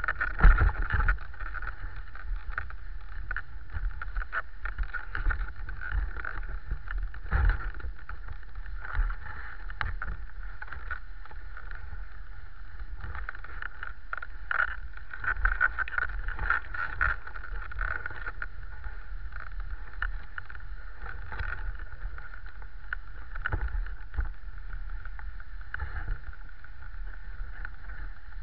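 Dog sled runners hissing steadily over snow while the sled moves, with frequent knocks and bumps from the sled jolting along the trail.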